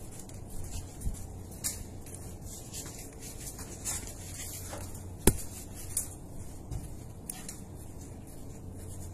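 Metal clinks and taps from a worker handling fittings on ammonia refrigeration pipework, with one sharp, louder click about five seconds in, over a steady low hum of plant machinery.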